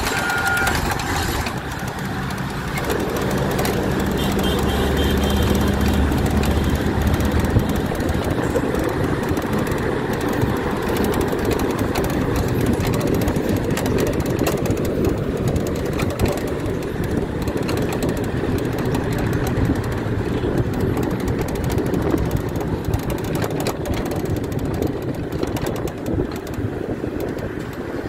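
Steady road and engine noise heard from inside a moving bus with its side window open, with a low engine drone strongest in the first several seconds.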